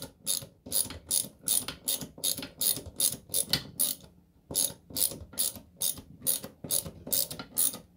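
Hand socket ratchet with a 10 mm socket and extension clicking in quick back-and-forth strokes, about three a second, with a short pause about four seconds in, as it drives a screw through a wall-mount bracket into a wall stud.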